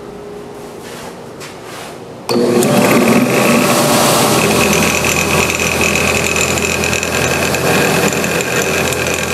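A belt sander and a Shop-Vac, wired to one switch, switched on together about two seconds in and running steadily with a loud motor whine.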